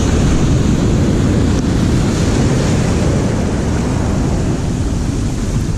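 Ocean surf washing in over the sand right at the microphone, a loud steady rush of foaming water that eases near the end, with wind buffeting the microphone.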